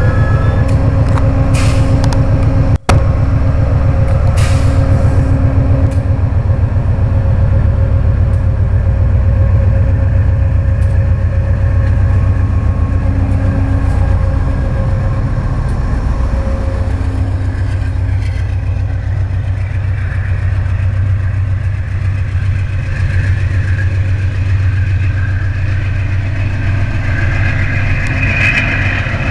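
GE P40 diesel locomotive engine running steadily close by as the train pulls past, a low hum with steady tones over it. There is a split-second gap in the sound about three seconds in.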